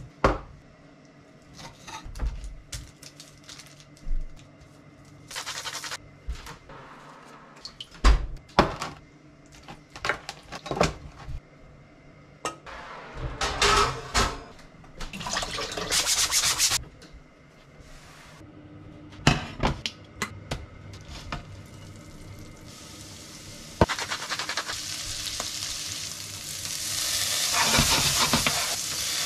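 Scattered knocks, clicks and handling noises of food preparation on a plastic cutting board. About two-thirds of the way in, greens start sizzling in a hot frying pan, stirred with a wooden spoon, and the steady sizzle grows louder near the end.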